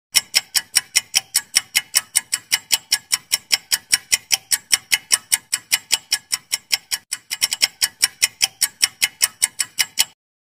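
Countdown-timer ticking sound effect: sharp, even clock-like ticks at about five a second, stopping abruptly near the end.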